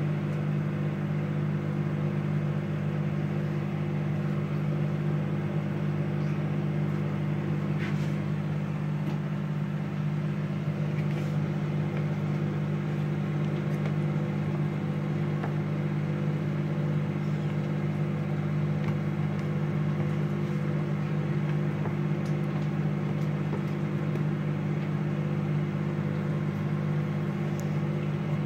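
Steady low electrical hum of a running machine, one unchanging drone made of several pitches, with a few faint clicks of a metal spoon stirring sauce in a plastic tub.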